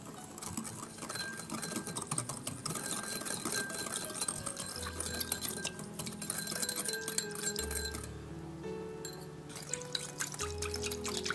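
Wire whisk stirring sugar, rice vinegar, water and salt in a small glass bowl, with rapid light clinks and scrapes of the wires against the glass and some liquid sloshing. The stirring pauses briefly about 8 s in, then resumes. Soft background music plays underneath.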